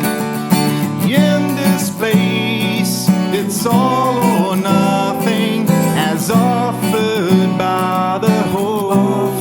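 Music: an acoustic guitar song in a country style, with a wavering melody line over steady chords.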